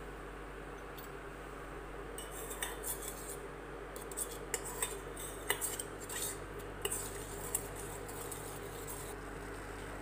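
Spiced turmeric water boiling in a small steel pot, with scattered sharp ticks and clicks of bubbles against the metal over a steady low hum, as the liquid is boiled down.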